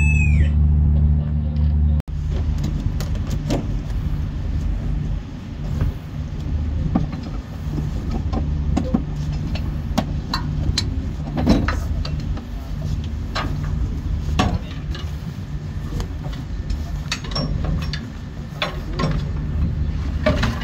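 The ship's fire alarm tone dies away with a falling pitch right at the start. After that comes a steady low drone of shipboard machinery, with scattered sharp knocks and clanks from a fire hose and its reel being handled on the steel deck.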